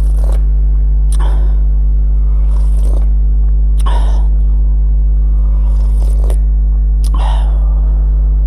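Close-miked chewing and mouth sounds of a person eating rice with stir-fried mustard greens and shrimp, in short irregular bursts, over a loud steady electrical hum.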